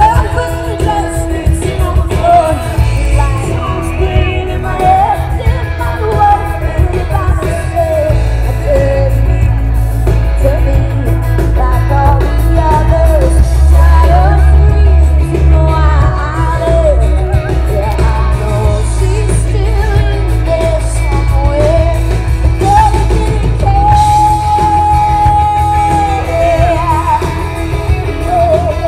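Live band playing amplified rock music: a singer over electric guitars, bass guitar, keyboard and drums, with a heavy bass. Near the end the singer holds one long note.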